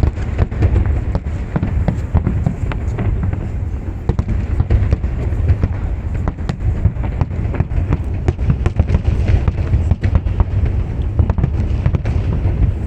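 Fireworks display: a dense, continuous barrage of bangs and crackles over a heavy low rumble.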